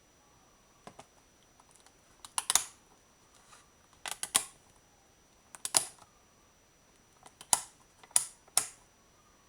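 A series of sharp clicks and light knocks in small clusters, roughly every one to two seconds, with quiet between them.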